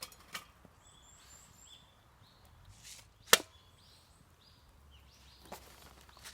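A few sharp knocks, with one much louder strike about three seconds in. Faint short high-pitched chirps sound between them.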